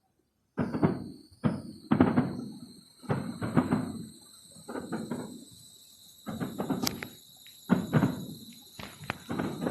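Fireworks going off in quick succession, heard as thuds with short rumbling tails, roughly one a second, under a steady high-pitched whine.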